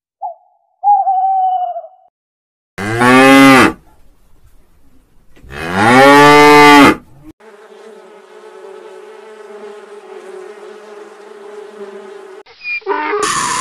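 A horned owl gives two short falling hoots, then a cow moos loudly twice, each long call rising and falling in pitch. A honeybee then buzzes steadily for about five seconds, and a new, louder animal sound cuts in near the end.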